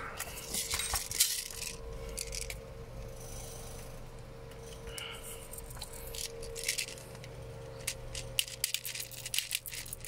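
Small plastic 6 mm airsoft BBs clicking and rattling as they are handled and pressed into the KJ Works MK2's CO2 pistol magazine. The clicks come in scattered groups, with a quick run of them near the end.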